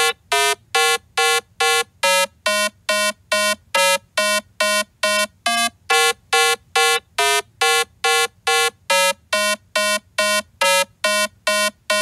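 A buzzy, beep-like synthesized tone playing short, evenly spaced staccato notes, about two and a half a second, in a simple melody that steps between a few pitches.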